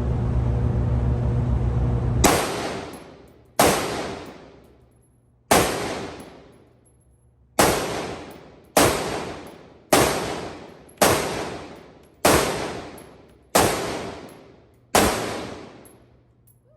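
Springfield Armory Saint Victor AR-15 rifle firing ten aimed single shots, about one every second or two. Each shot is followed by a long echoing tail, typical of an enclosed range. A steady low hum stops just before the first shot, about two seconds in.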